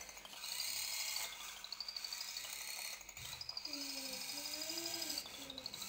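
Small robot's electric gear motors whining as it drives and turns, in two stretches, the pitch shifting up and down as it moves.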